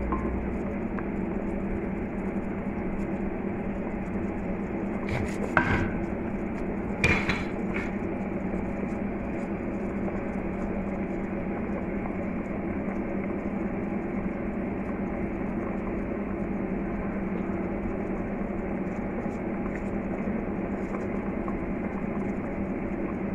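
A pot of broth boiling over a steady kitchen hum, with two short clanks of a utensil against the pot, about five and a half and seven seconds in.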